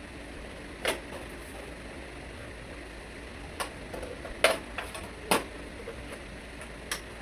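A handful of sharp clicks and knocks from tools and metal parts being handled while an air conditioner's outdoor unit is reassembled, over a steady low hiss; the loudest knock comes about halfway through.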